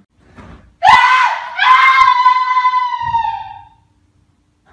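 A person screaming shrilly: a short scream about a second in, then a longer one held at a steady pitch for about two seconds and fading out.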